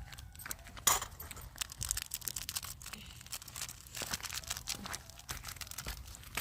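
A plastic Maggi masala sachet being torn open and crinkled, a dense run of irregular crackles and crinkles with one sharp loud tear about a second in.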